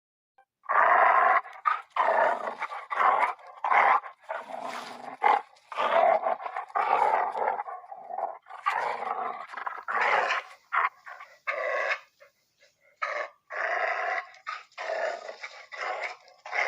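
Dog growling in a run of repeated loud bursts with short gaps between them.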